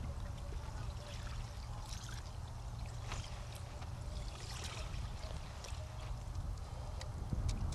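Water splashing and trickling in an ice-fishing hole as a hand reaches in and lifts out a smallmouth bass: a few short splashes over a steady low rumble.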